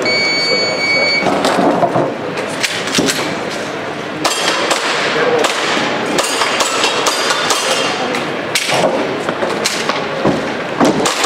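Electronic shot timer giving its start beep, one steady tone lasting about a second, followed by an airsoft pistol firing a long string of sharp shots at the stage targets.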